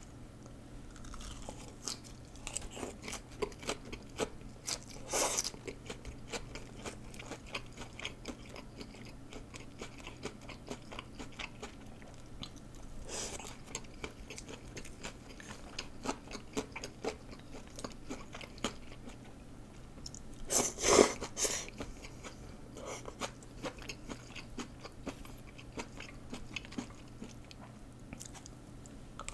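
Close-miked chewing and biting of bun cha (lettuce, grilled meat and rice noodles dipped in sauce), with many small wet mouth clicks and light crunching. A few louder eating sounds come about 5, 13 and 21 seconds in, the loudest near 21 seconds.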